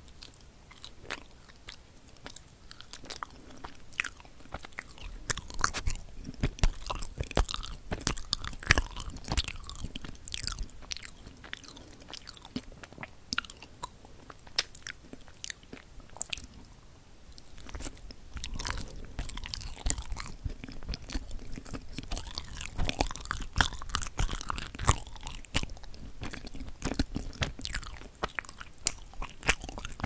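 Close-miked chewing of a dense, fudgy wagashi (Japanese bean-paste sweet): rapid irregular wet clicks and smacks of the mouth and lips. The chewing thickens about five seconds in, eases off a little past the middle, then picks up again.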